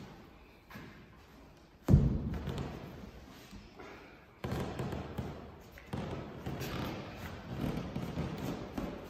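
A single heavy thump about two seconds in that dies away over a couple of seconds. From about halfway, more low thuds and a dense rumbling continue.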